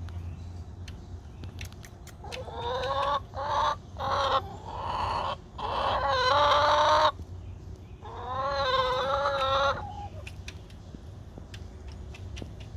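Backyard hens calling: a string of drawn-out, pitched clucks from about two seconds in to about seven seconds, then one more long call around eight to ten seconds.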